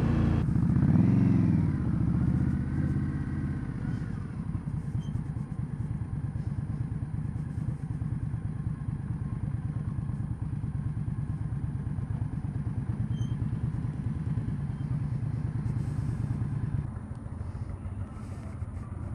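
Indian Scout's 1,133 cc liquid-cooled V-twin engine revving up and falling back in the first few seconds, then running steadily at low revs with an even pulse. It quietens near the end.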